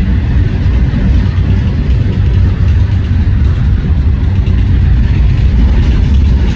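CSX freight train passing close by: a loud, steady low rumble.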